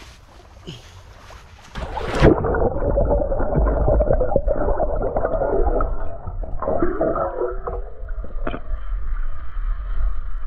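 A camera plunges into shallow seawater about two seconds in with a splash, then muffled underwater sound: low rumble and bubbling, churning water.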